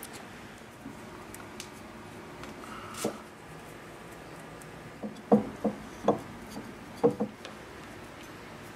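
Pipe clamp being set and tightened against a wooden furniture leg to hold a freshly glued joint: one knock about three seconds in, then a run of five or six short, sharp clicks and knocks between about five and seven and a half seconds, over quiet room tone.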